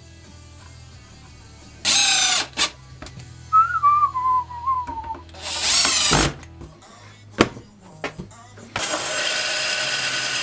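Cordless drill-driver driving small screws into a hinge, two short bursts of the motor spinning up. About two-thirds in, a bandsaw takes over, running steadily as it cuts a block of wood.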